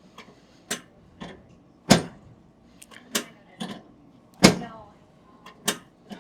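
A series of sharp, irregularly spaced clacks from a chiropractic adjustment of the lower sacroiliac joint, about eight in six seconds, each short with quiet between.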